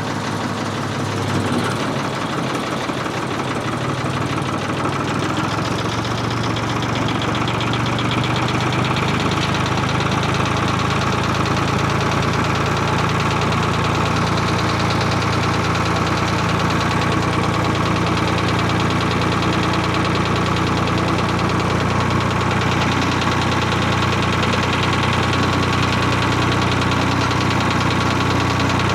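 Ford 4000 tractor engine running on a test drive, picking up and growing a little louder about six to eight seconds in, then holding a steady pace.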